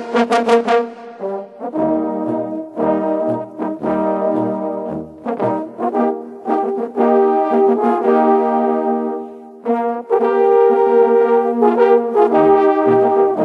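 A brass ensemble playing a slow piece in held chords over a low bass line, with a short run of quick repeated notes at the start. The music dips briefly near the middle, then swells into louder sustained chords.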